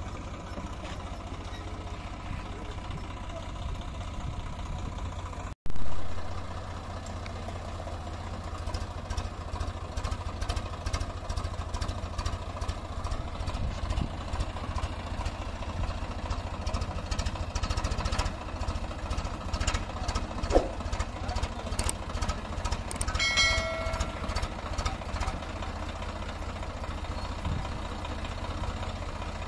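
Swaraj 744 FE tractor's three-cylinder diesel engine running steadily with a low, even beat. The sound drops out for a moment and comes back briefly loud about five and a half seconds in.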